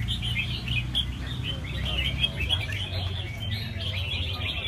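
Many caged red-whiskered bulbuls singing at once: a dense chorus of overlapping, rapid chirps and warbles with no gap, over a low steady rumble.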